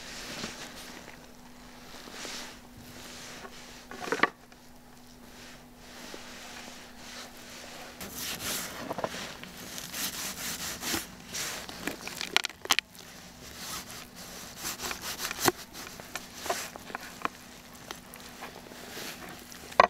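Knife cutting up a raw whole chicken on a wooden cutting board: scraping, sawing strokes through skin and joints, with scattered sharp knocks. The cutting gets busier from about eight seconds in.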